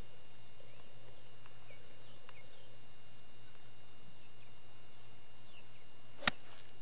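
A golf club striking a ball off the tee: one sharp crack about six seconds in. Before it, faint high chirps over a steady low hum.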